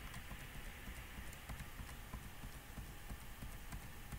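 Faint, scattered clicking from a computer keyboard or mouse while the chess board is stepped to another position, over a low steady hum.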